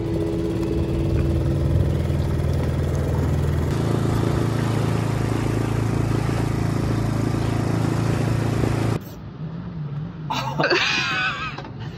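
Small Suzuki outboard motor on an inflatable dinghy running steadily under way, with water rushing past. About nine seconds in it cuts off abruptly and a man lets out a loud, wavering yell.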